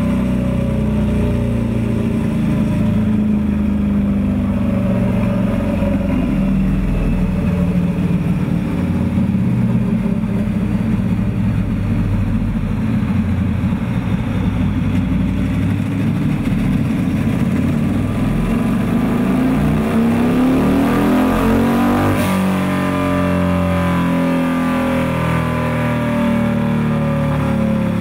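Turbocharged Harley-Davidson V-Rod's 1250 cc liquid-cooled V-twin running loud under load on a chassis dyno during a tuning run. Its pitch climbs steadily for several seconds and drops away abruptly about three-quarters of the way through as the throttle is closed.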